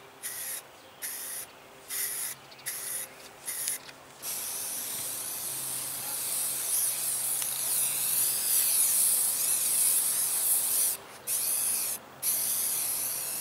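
Aerosol spray-paint can hissing: a run of short bursts, then a long steady spray broken by two brief pauses near the end.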